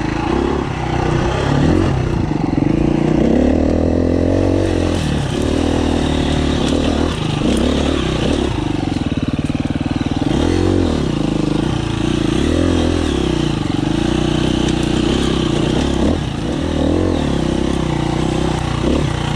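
2019 KTM 350 EXC-F's single-cylinder four-stroke engine running under a rider on a slow trail, its pitch rising and falling several times with the throttle.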